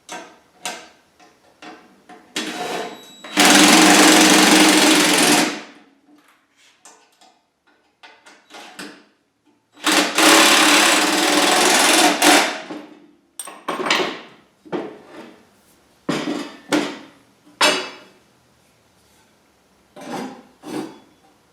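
A handheld power tool driving hardware in two runs of about two seconds each, the first with a short blip just before it, with sharp knocks and clatter of metal parts being handled between the runs.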